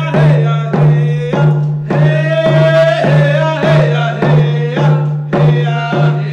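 An Indigenous song: a voice singing over a steady hand-drum beat of a little under two strikes a second.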